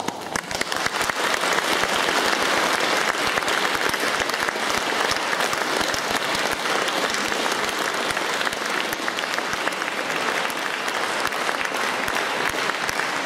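Audience applauding, the clapping building quickly over the first second right after the end of a sung piece, then holding steady.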